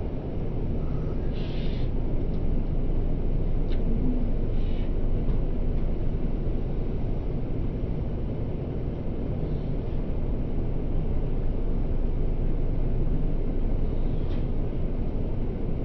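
Steady low rumble of a jet airliner's cabin noise in flight, with a few faint brief sounds over it.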